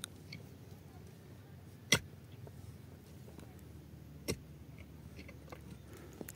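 A pickaxe striking earth in slow, steady swings, one sharp strike about every two seconds.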